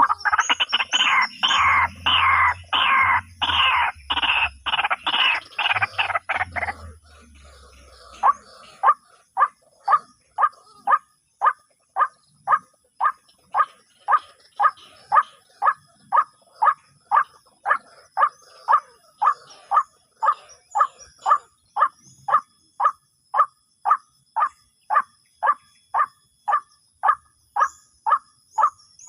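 White-breasted waterhen (ruak-ruak) calling. A loud, harsh run of rapid croaking calls for the first seven seconds gives way to a steady series of single short 'kwak' notes, about one and a half a second.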